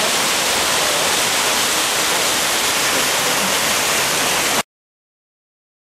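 Rough surf: a steady rush of breaking waves and whitewater that stops abruptly a little over four seconds in.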